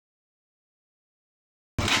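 Dead silence, then about a second and three-quarters in the sound cuts in abruptly: a Honda CG150 motorcycle's single-cylinder pushrod engine running, freshly fitted with a new camshaft and cam gears.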